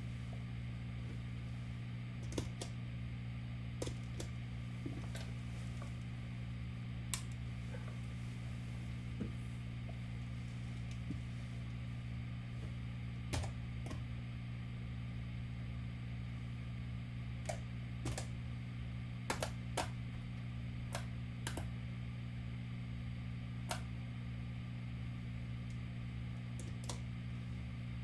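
About twenty short, sharp clicks at irregular intervals, some in quick pairs, over a steady low electrical-sounding hum.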